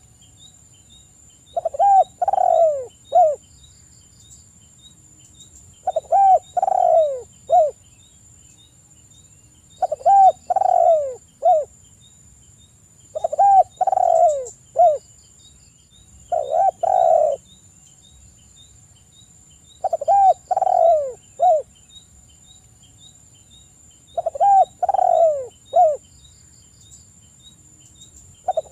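Spotted dove cooing: seven phrases of three or four notes each, coming about every four seconds, each note dropping in pitch.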